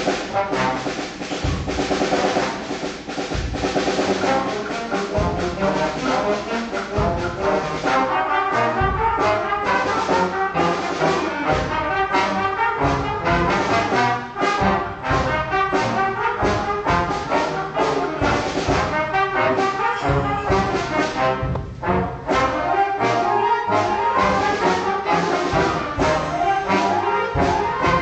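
School concert band playing, brass to the fore, with drum hits.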